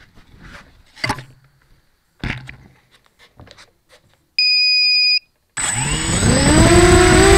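Knocks and rustles as the mini T4 quadcopter is handled and set down, then a single electronic beep lasting under a second. About a second after the beep the quadcopter's electric motors spin up: a whine that climbs quickly in pitch, then levels off into a steady, louder hum with a high whistle above it.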